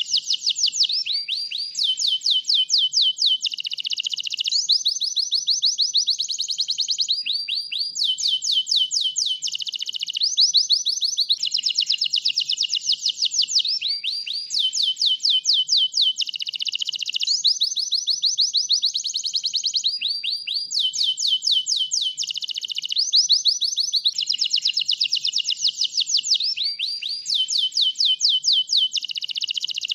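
A white domestic canary singing a continuous high song of fast trills: one run of quickly repeated notes after another, with only short breaks between phrases.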